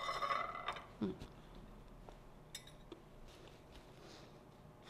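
A plate clinks and rings briefly at the start, then a short falling hummed 'mm' about a second in, followed by faint rustles of a paper napkin being used to wipe fingers.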